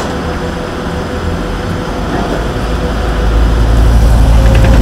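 Street traffic noise, then a city bus's engine rumble growing loud over the second half as the bus comes up close.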